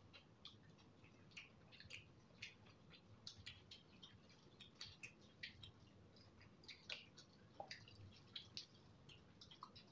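Faint eating sounds: scattered short wet clicks and smacks, several a second, from chewing and from fingers working through saucy noodles.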